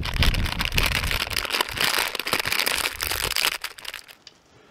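Plastic snack packet crinkling and crackling loudly as gloved hands handle it close to the microphone. It stops abruptly about four seconds in.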